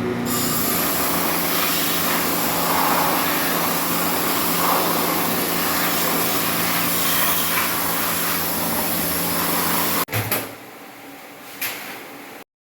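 Stihl MS 260 chainsaw's two-stroke engine, freshly rebuilt with a new piston, gaskets and filters, running steadily. About ten seconds in it stops abruptly. A quieter noise with a couple of knocks follows.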